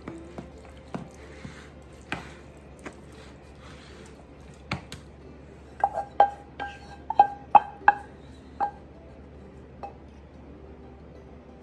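A spoon knocking and scraping against a skillet, the pan ringing briefly with each clink, in a quick run of about eight from about six seconds in. Before that come a few softer taps and scrapes of the utensil in a foil pan.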